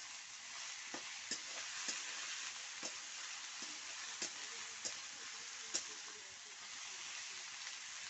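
Sticks of potato sizzling as they stir-fry in a kadai, with a steady hiss and irregular clinks of the spatula against the pan as they are stirred and turned.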